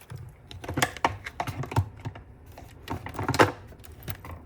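Irregular clicks, taps and knocks of hands handling a plastic coffee maker and a phone, with one louder knock about three-quarters of the way through.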